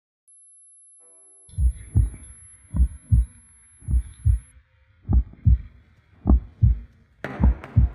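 Heartbeat sound effect: slow, deep double thumps in a steady lub-dub rhythm, six beats a little over a second apart, starting after about a second and a half of silence. A faint high steady hum sits behind them.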